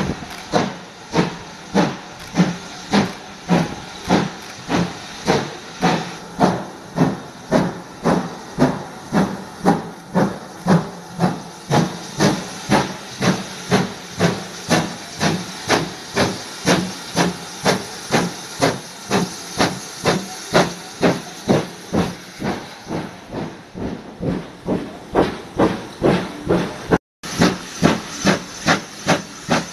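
Steam locomotive no. 5199, a GWR 2-6-2T tank engine, working a train away from the station with sharp, steady exhaust beats from its chimney at about two a second.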